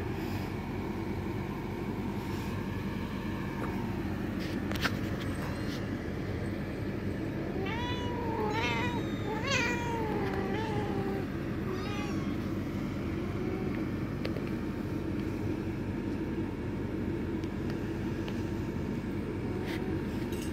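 British shorthair kitten meowing several times in quick succession, short high calls that waver in pitch, asking to be put by its mother to nurse, over a steady low rumble.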